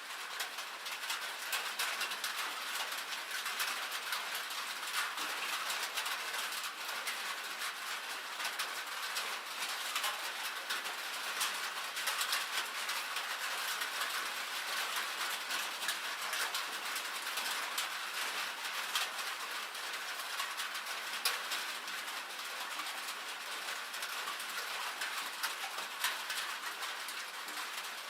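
Rain and hail falling on a metal roof: a steady, dense spray of sharp ticks and taps, thin and high with no low rumble.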